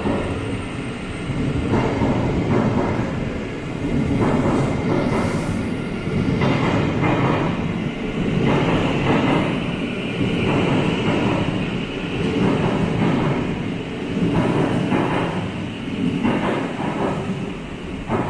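Thameslink Class 700 electric multiple unit pulling out of an underground platform, its wheels rumbling on the rails with a swell in the noise about every two seconds as the carriages pass.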